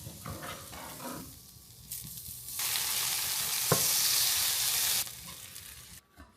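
Potatoes sizzling in a hot pan as they are stirred, the sizzle much louder for a couple of seconds in the middle.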